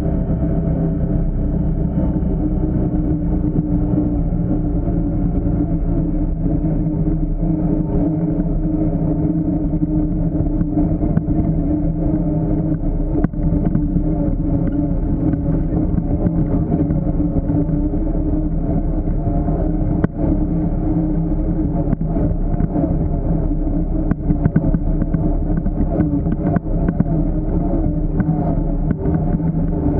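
Honda Pioneer 1000 side-by-side's engine running steadily while driving the trail, with a few sharp knocks along the way.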